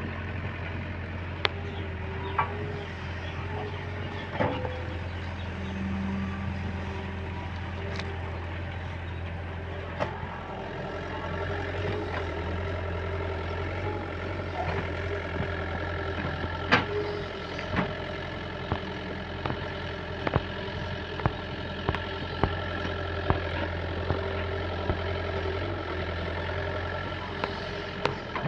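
Diesel engine of a JCB 3DX backhoe loader running steadily at working speed, with sharp metallic knocks at irregular intervals that come more often in the second half.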